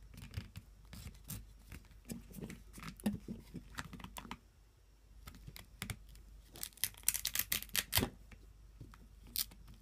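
Handling noise from fastening the battery strap on a Parrot Bebop drone: scattered small plastic clicks and knocks, with a quick run of crisp clicks and scratchy rustling and a sharper knock near the end.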